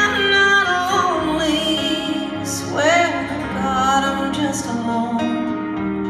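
A woman singing live with instrumental accompaniment: a sung melody with vibrato over held notes.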